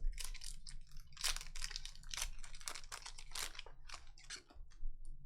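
Trading cards and a foil pack wrapper being handled: a quick run of crinkling, rustling strokes.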